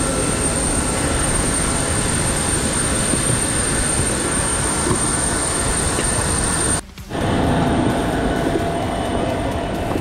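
Steady jet noise of airliners on an airport apron: a loud, even roar with a high, constant whine. It drops out for a moment about seven seconds in, then resumes slightly duller.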